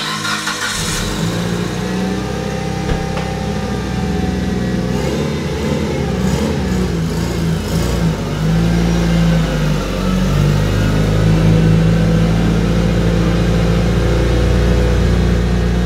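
Mitsubishi Lancer Evolution VIII's turbocharged 4G63 four-cylinder engine running at low revs as the car creeps forward, growing louder as it pulls up close.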